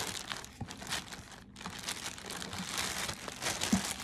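A clear plastic poly bag crinkling and rustling as hands open it and pull folded fabric out, with a brief lull about a second and a half in.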